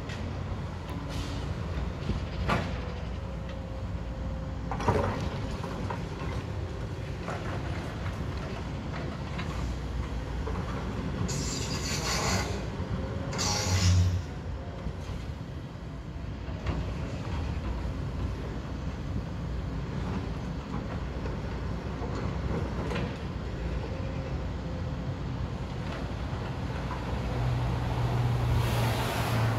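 Tracked hydraulic excavator's diesel engine running steadily while it digs into a pile of demolition rubble, with a few sharp knocks and two bursts of clattering debris around the middle. The engine note grows louder near the end.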